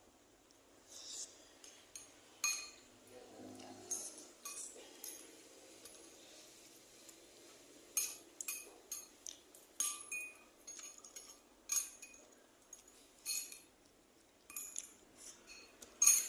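Eating utensils clinking and tapping against a noodle bowl: a dozen or so short, sharp clinks at irregular intervals, the loudest right at the end.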